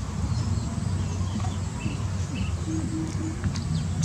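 Small birds chirping in short scattered calls over a steady low rumble.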